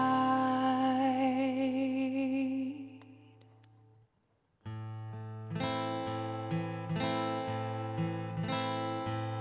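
A woman's singing voice holds one long wavering note over a ringing acoustic guitar chord, and both fade away. After a brief silence about four and a half seconds in, the acoustic guitar starts strumming again in a steady rhythm, with no voice.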